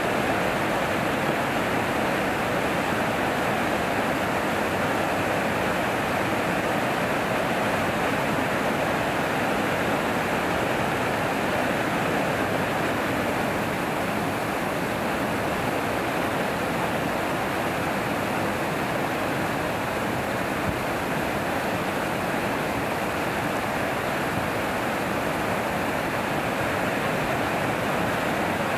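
Water pouring over a low river weir and churning in the whitewater below: a steady, even rush.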